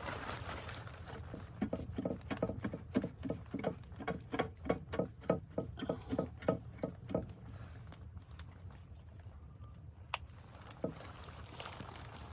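Footsteps crunching through snow, about three steps a second, stopping after about seven seconds, over a low steady rumble of wind. One sharp click near the end.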